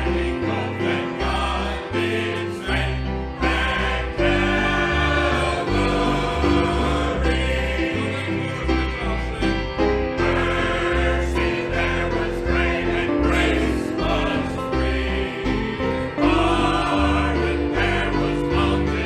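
Congregation singing a gospel hymn together over instrumental accompaniment with a moving bass line.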